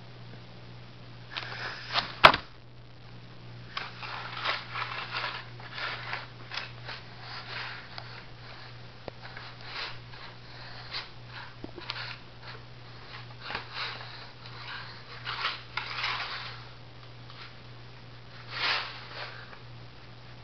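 A cat clawing and rubbing at a corrugated cardboard scratcher: irregular bursts of scratchy rustling, with a sharp click about two seconds in. A faint steady hum runs underneath.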